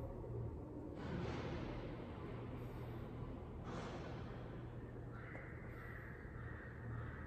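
Body and clothing brushing on a foam exercise mat as a person rolls back onto the shoulders and rocks up to sitting, heard as two swishing bursts that fade out, over a steady low hum.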